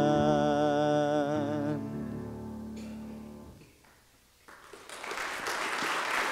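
A solo singer holds the final note of a hymn with a wavering vibrato over a sustained accompaniment chord, which rings on and fades after the voice stops. After a brief hush, an audience starts applauding about four and a half seconds in.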